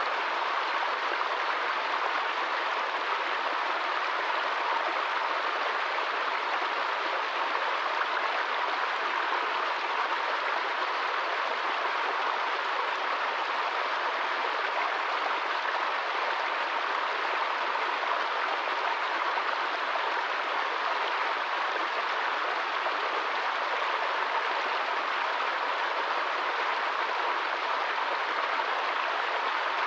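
Small woodland stream splashing steadily over rocks and a low cascade, an even, unchanging sound of running water.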